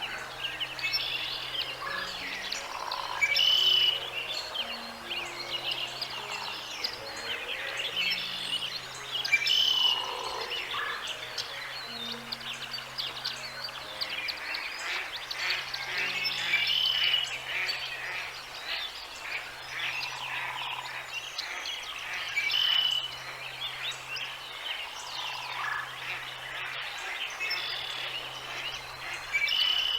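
Birds chirping and calling throughout, with louder bursts of calls about every six or seven seconds, over soft background music with long held low notes.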